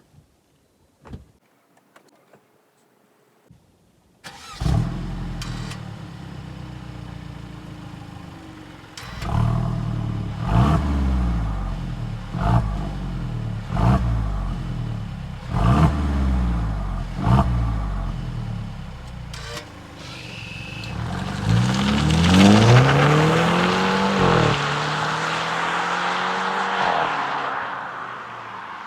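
Mercedes-Benz E-Class Coupe engine starting with a loud flare through its valve exhaust, open in Sport+ mode, after a few faint clicks. It idles, then gets about six short throttle blips, each falling away with sharp pops and crackles. Near the end comes one longer, higher rev that drops off suddenly, and the engine runs on more steadily.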